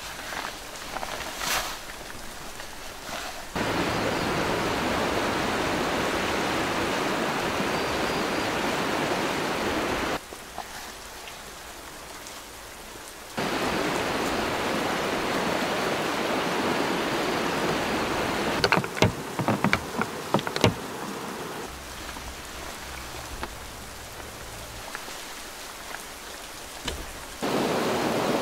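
Steady hiss of water noise that starts and stops abruptly several times, with quieter stretches between. A cluster of sharp clicks comes about two-thirds of the way through.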